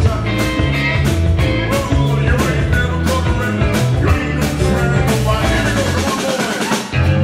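Live rock and roll band playing, with electric guitars, bass and drum kit keeping a steady beat. Near the end the bass and low drums drop out for a moment, then the full band comes back in.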